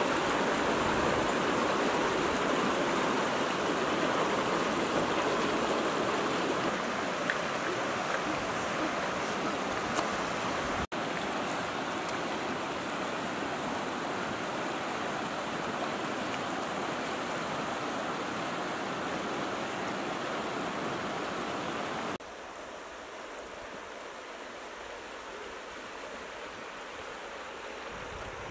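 Shallow river rushing over rocks in rapids, a steady rush of water. It breaks off for an instant about eleven seconds in, and about twenty-two seconds in it drops suddenly to a quieter, gentler flow.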